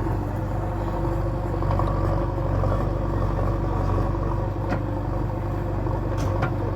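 JCB 3DX backhoe loader's diesel engine running steadily, with two short knocks in the second half.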